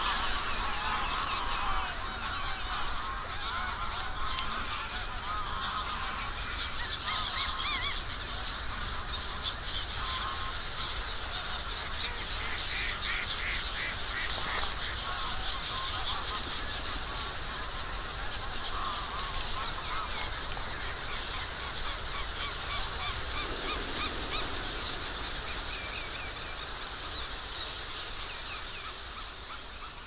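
A large flock of birds calling all at once: a dense, continuous chorus of many overlapping calls, fading away near the end.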